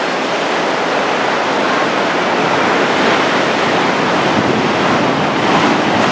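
Heavy Atlantic Ocean surf breaking and washing against the shore: a continuous loud rush of water, swelling slightly a few times.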